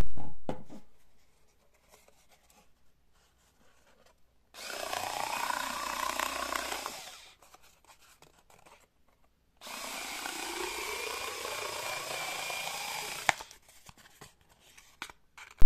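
Small 4 V cordless screwdriver with a rotary shear attachment running and cutting through cardboard in two bursts of a few seconds each. The motor whine rises in pitch at the start of each burst. A short loud sound at the very start dies away within a second.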